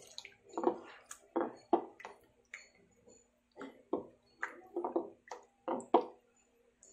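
Raw chicken legs being mixed in a wet egg-and-calamansi marinade in a bowl: irregular squelching and sloshing, about two squishes a second with a short pause near the middle.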